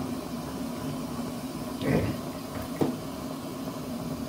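Preheating burner of an Optimus kerosene marine stove burning under the left burner, a steady low hiss and hum while it heats the burner so the kerosene will vaporise. A soft thump comes about two seconds in and a short knock a moment later.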